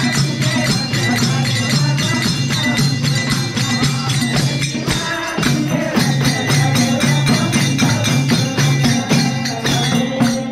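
Bhajan devotional music: fast, even jingling hand percussion over held low notes.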